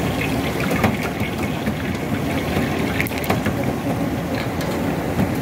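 Large paratha deep-frying in ghee in a big karahi: a steady loud sizzle and bubbling of the hot fat, with a few short metal clicks of a ladle against the pan.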